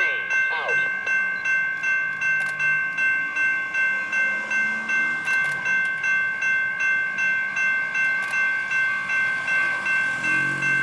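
A Sounder commuter train's bell, stuck on and ringing continuously at about three strikes a second as the train approaches. Low train sound rises under it near the end.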